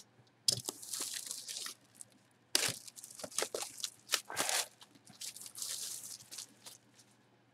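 Plastic shrink wrap torn and crinkled off a cardboard hobby box, in irregular crackling tears with a few sharp clicks as the box is handled.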